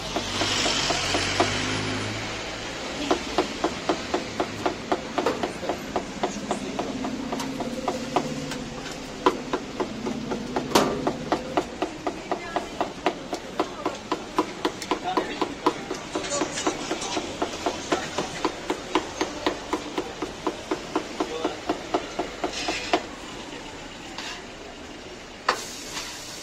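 Large knife chopping grilled kokoreç on a wooden cutting board: a fast, even run of knocks, about four a second, that stops a few seconds before the end.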